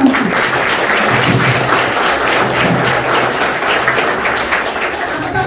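Audience applause: a hall full of schoolchildren clapping, a dense even patter of many hands.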